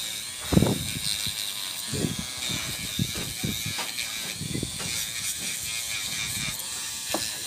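Electric nail drill running with a sanding band, filing a soft gel nail extension tip: a steady high whine with irregular low knocks, the loudest about half a second in.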